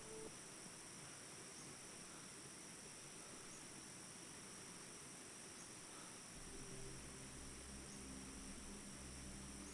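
Faint, steady chirring of crickets or similar insects. A low, soft hum with a few held tones joins in about six seconds in.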